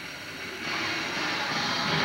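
Applause tailing off, then recorded music for the flag routine coming in about half a second in with a steady, swelling opening of held tones.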